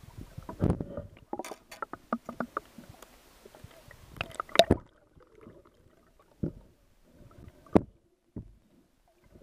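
Mako shark biting the boat's propeller, heard underwater: a run of irregular sharp knocks and clicks, loudest about four and a half seconds in, with a few more scattered knocks later.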